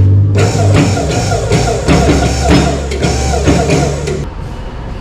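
Rock music with guitar and drums that cuts in about half a second in and stops abruptly just after four seconds, over a low steady hum.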